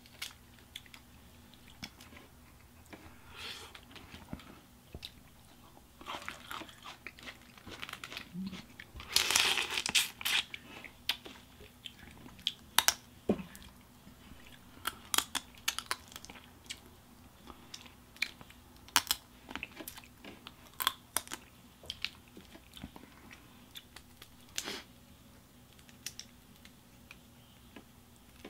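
Cooked snow crab legs and crawfish being cracked and peeled by hand, with chewing: a scattered series of sharp shell cracks and snaps, loudest in a dense run about nine to ten and a half seconds in.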